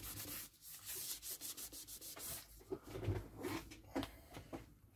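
Irregular rubbing and scraping as small parts of a soldering station are handled on the bench, with a short sharp click about four seconds in.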